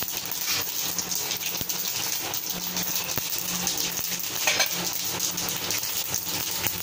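Hot oil sizzling in a steel kadai, with many small crackles and pops, as dried red chillies, mustard seeds and urad dal fry for a South Indian tempering.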